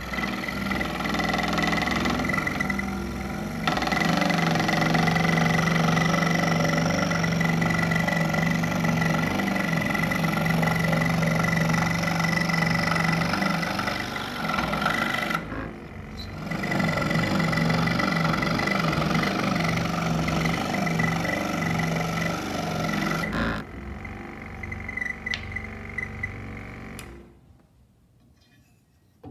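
Scroll saw running and cutting through a pine board along a traced curve: a steady motor hum with the blade's fast reciprocating chatter. It drops out briefly about halfway and stops near the end.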